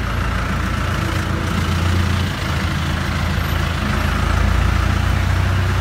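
City street traffic, with a minibus engine running close by as a steady low rumble.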